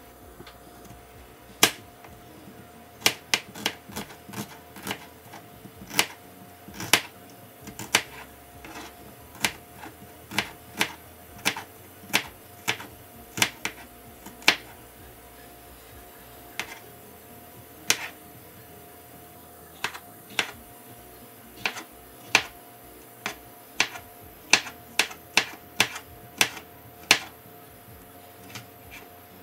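Chef's knife slicing an onion and a red bell pepper on a plastic cutting board. The blade knocks sharply on the board at an uneven pace, about one or two cuts a second, and quickens into a fast run near the end, over a faint steady hum.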